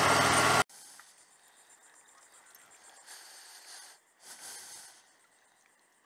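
Motorcycle engine running with wind noise, which stops abruptly about half a second in. After that there is only a faint hiss, with two brief swells of noise around the middle.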